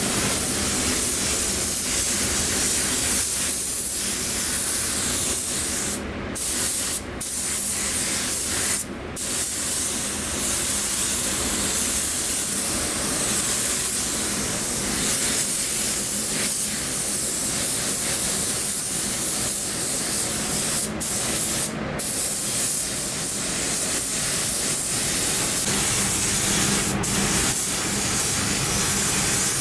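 Compressed air hissing steadily from a pneumatic air gun, cut off briefly a few times as the trigger is released.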